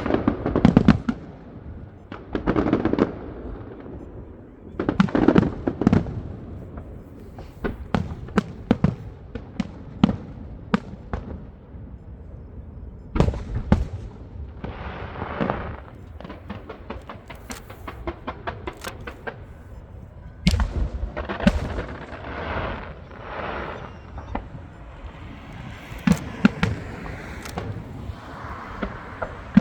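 Fireworks display: shells bursting with deep bangs every few seconds, amid a steady run of sharp cracks and crackling.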